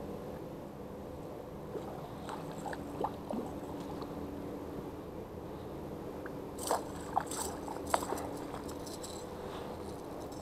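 A pike thrashing in shallow water and being dragged out onto a dirt bank: a few scattered splashes and knocks, the sharpest cluster a little past the middle, over a steady low hum.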